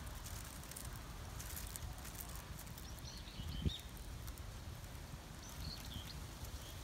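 Outdoor ambience: a steady low rumble, with a few faint short bird chirps about three seconds in and again near the end, and one soft thump about halfway through.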